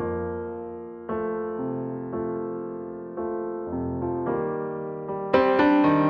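Background piano music: slow chords struck one after another, each fading before the next, with a louder, brighter chord about five seconds in.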